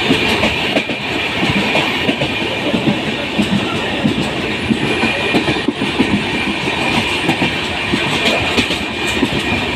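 Moving train heard from on board: wheels clattering over the rail joints, with steady rumble and rushing noise.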